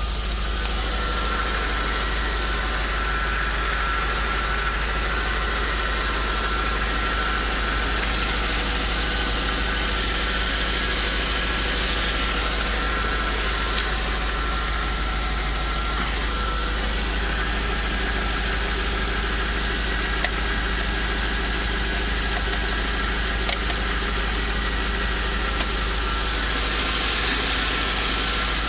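Audi RS6 C5's 4.2-litre twin-turbo V8 idling steadily, with a few brief clicks in the last third.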